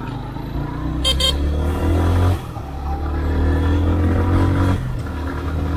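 Motorcycle engine running under way. Its note climbs, drops about two and a half seconds in, climbs again and drops near the end. A short high-pitched sound cuts through about a second in.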